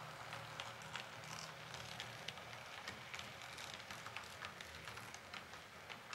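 H0-scale model train, an SU46 diesel locomotive with a passenger coach, running on the layout's track. A faint steady low hum runs under irregular light clicks of the wheels passing over rail joints and points.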